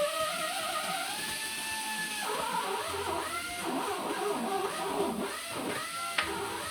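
Background music with held and gliding notes.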